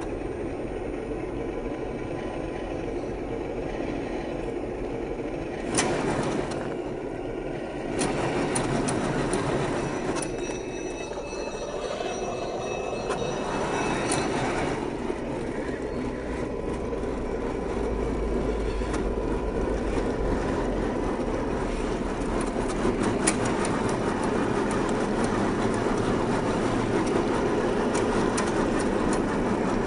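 The electric drivetrain of an HG P802 8x8 RC truck (550 brushed motor and geared axles) whirring under load as it crawls up a rock slab, with a few sharp knocks from the tyres and chassis on the rock and a faint high whine for a few seconds near the middle.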